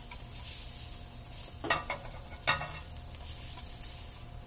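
Pork chops sizzling steadily as they fry in a pan, with two sharp knocks of a metal fork against the pan about halfway through.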